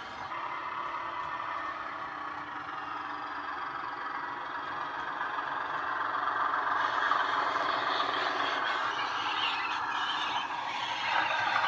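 Diesel engine sound from the DCC sound decoder in a Heljan OO-gauge Class 16 model locomotive (Legomanbiffo's Class 15/16 sound file), played through a small bass-enhanced speaker, with the model's running noise on the track. It grows louder as the locomotive approaches.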